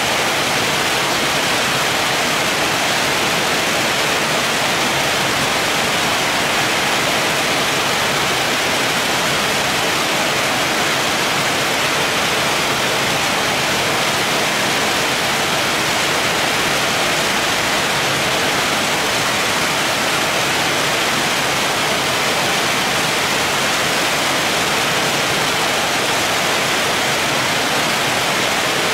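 Very heavy rain falling, an even, unbroken hiss.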